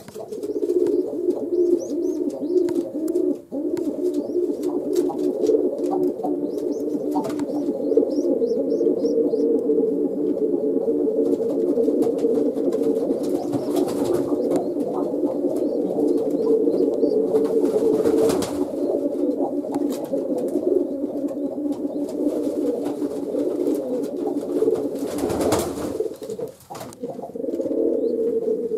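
Domestic pigeons cooing without pause, several birds overlapping into a steady low burbling, with a few brief rustles in between.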